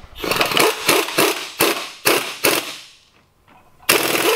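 Sharp metallic knocks from hand tools working the transmission bell housing bolts under the car, about three or four a second. They stop for about a second, then a louder short burst of noise comes near the end.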